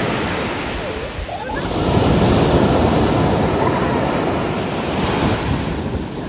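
Sea waves breaking on a sandy beach: a steady rush of surf that swells louder about two seconds in.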